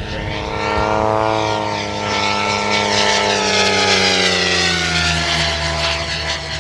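Electric 700-size RC speed helicopter (Suzi SS 16S, running on a 16-cell battery) making a fast pass: the whine of its motor and the rush of its rotor blades swell, then slide down in pitch as it goes by.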